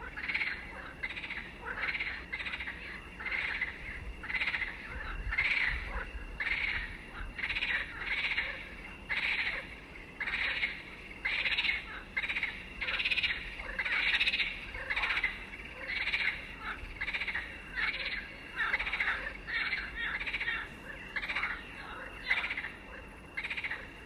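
A steady series of repeated animal calls, about three every two seconds, over a faint unbroken high tone.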